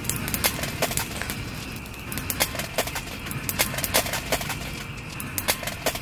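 Split wood logs burning in a metal fire pit, crackling with irregular sharp pops several times a second. A steady chorus of frogs singing runs underneath.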